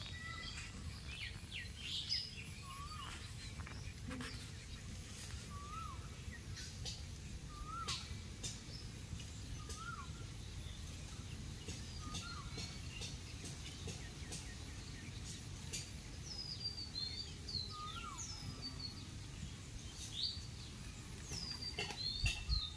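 Wild birds calling over a steady low background hum: one bird repeats a short rising-then-falling note about every two seconds, and other birds add higher chirps, more of them in the second half. A low thump near the end.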